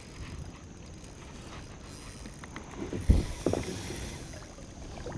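A few short knocks and bumps against a kayak, clustered about three seconds in, over steady background noise.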